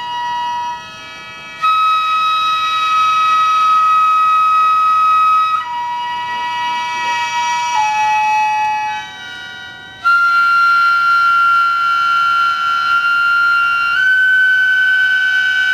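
Japanese gagaku court music: a wind melody in long held notes that steps to a new pitch every few seconds over a steady sustained chord, with short breaks between phrases.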